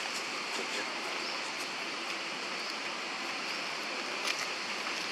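Steady outdoor background hiss, with a couple of faint clicks about four seconds in.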